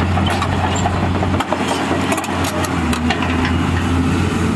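Caterpillar 320C excavator's diesel engine running as the machine swings and works its boom, the engine note changing about a second and a half in. Scattered light clicks and knocks sound over the engine.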